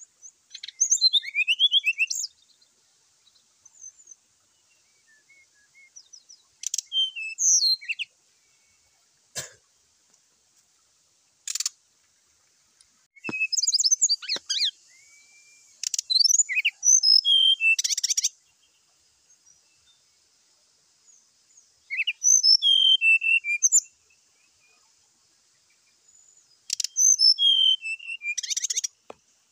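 Brown-chested jungle flycatcher singing its fighting song in about six short bursts of fast, high chirping notes, each a second or two long, with pauses of a few seconds between them. A couple of sharp clicks fall between the bursts.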